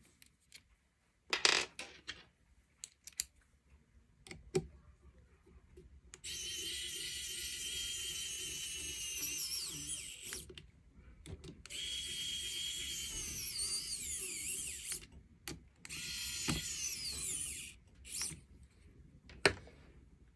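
Handheld power drill-driver running in three long bursts, its motor whine rising and falling in pitch as the trigger is worked, probably driving bolts or screws into the robot arm. A few sharp clicks of tools and parts being handled come first.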